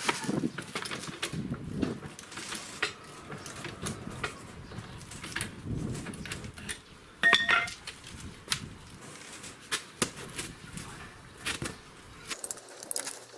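Metal hand tools being handled, with scattered clinks and knocks and one louder ringing clank about seven seconds in.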